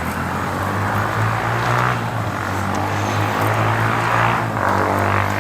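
A motor engine running with a steady low hum, having grown louder just before and holding level throughout.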